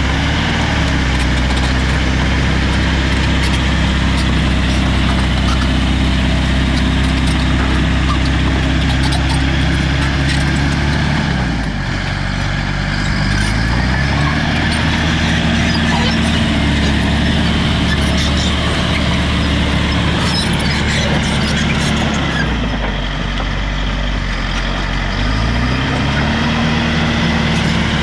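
Caterpillar D5 wide-track bulldozer's diesel engine running steadily. It slows twice, once about eleven seconds in and again near the end, and climbs back up to speed about two seconds later each time.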